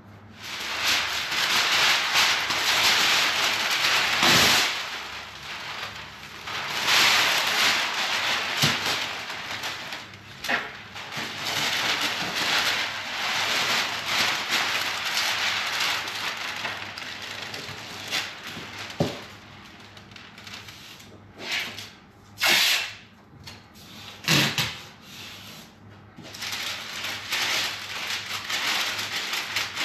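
Brown masking paper rustling and crinkling as it is unfolded and pressed onto a car's door panels, loudest in the first few seconds, with a few short sharp tearing sounds in the second half.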